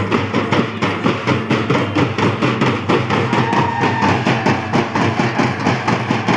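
Dappu frame drums beaten in a loud, steady, fast rhythm.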